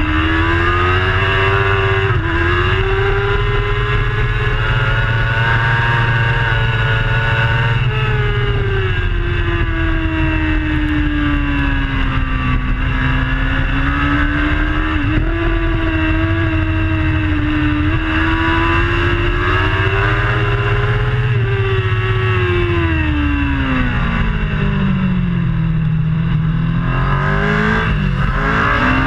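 Racing superbike engine at high revs, heard onboard. Its pitch climbs through the gears with sudden drops at upshifts about two and eight seconds in, then falls in a long slide near the end as the bike slows for a corner, before climbing again.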